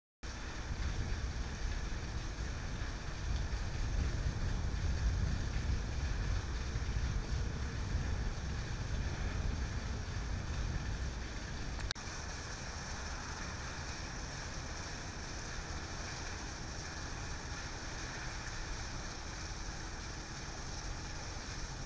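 Heavy rain pouring steadily, with a low rumble underneath. About twelve seconds in the sound changes abruptly to a slightly quieter, steadier hiss of rain with less rumble.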